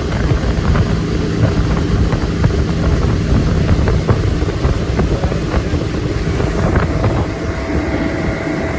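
Fishing boat's outboard motor running steadily under way, with wind buffeting the microphone.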